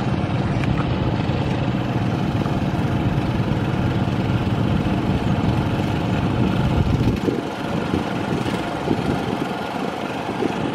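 Small engine of a rice transplanter running steadily; its low rumble drops away abruptly about seven seconds in.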